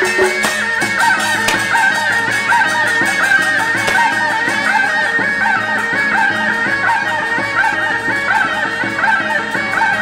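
Traditional Taiwanese temple-procession music: a wavering wind-instrument melody with quick ornaments over a regular percussion beat.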